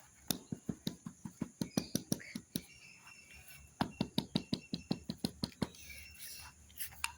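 A quick, even series of sharp taps or clicks, about five or six a second, in two runs with a pause of about a second between them.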